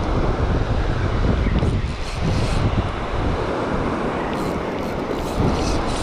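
Wind buffeting the microphone over the wash of breaking surf.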